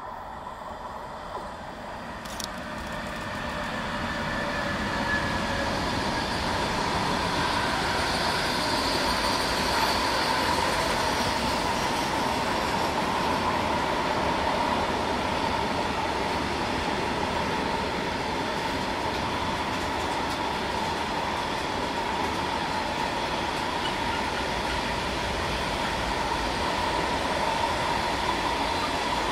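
A long electric-hauled intermodal freight train of loaded pocket wagons rolling past on a curve. It grows louder over the first few seconds as it nears, then holds a steady rumble of wheels on rails with a thin high squeal. Early on, faint whining tones slowly fall in pitch as the locomotive passes.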